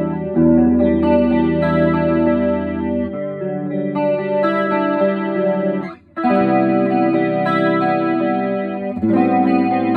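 Electric guitar, a PRS SE Custom 24, through a Boss DC-2 Dimension C chorus pedal on its second mode button and into a Vox AC30 amp. It plays sustained, ringing chords that change every few seconds, with a brief break about six seconds in.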